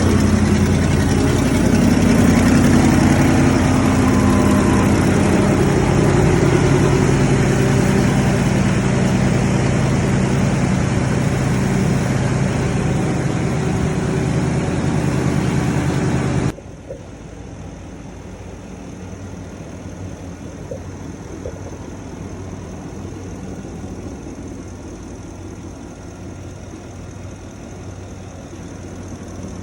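Ford Super Duty pickup engine idling steadily, running again now that a rotten wire behind the no-start has been found. About 16 seconds in the sound drops abruptly and the engine carries on, much quieter.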